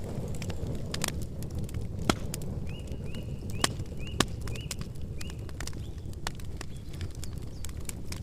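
Campfire crackling: a steady low rumble of burning wood with scattered sharp pops, the loudest about two, three and a half and four seconds in. A bird gives a short run of repeated high chirps in the middle.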